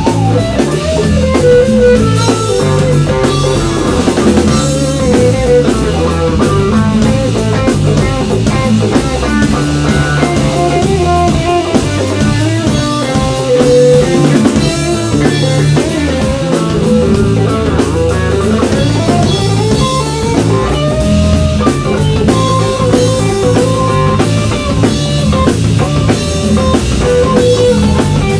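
Live electric band playing an instrumental passage: an electric guitar plays a lead line with bent notes over electric bass, drum kit and percussion.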